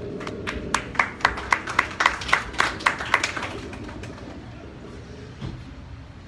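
Typewriter keys clacking: about a dozen sharp keystrokes at a steady pace of roughly four a second for about three seconds, over a faint low sustained tone.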